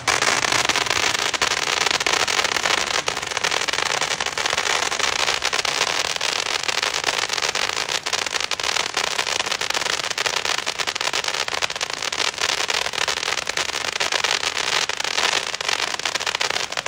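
A 500-gram consumer firework firing from the ground, giving off a dense, continuous crackle of crackling stars for the whole stretch and stopping abruptly at the end.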